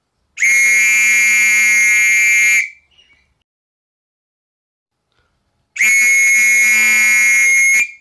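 A whistle blown in two long, steady blasts of a little over two seconds each, the second starting about halfway through. Each blast holds one high pitch, with no trill or warble.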